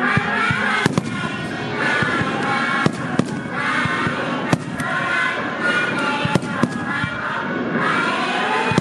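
Fireworks bursting close by: a run of sharp bangs, several a few seconds apart and some in quick pairs. Music plays continuously underneath.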